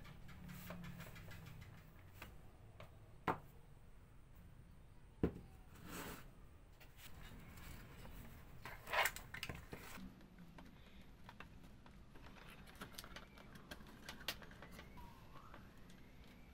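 Small wooden toy parts being handled and fitted together by hand, giving a few sharp wooden clicks and taps over faint handling rustle. The loudest click comes about five seconds in, with a short cluster of taps around nine seconds.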